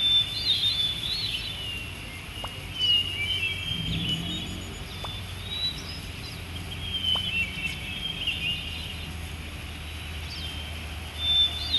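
Birds calling: short high chirps and quick whistled notes, repeating irregularly, over a steady low hum.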